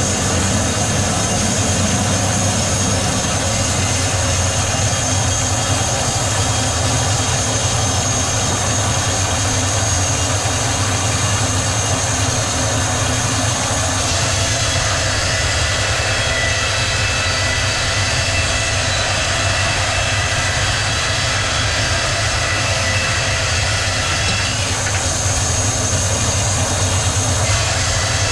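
Sawmill machinery running: a loud, steady mechanical din with a high, even whine over a low hum. The sound changes abruptly about halfway through and again near the end.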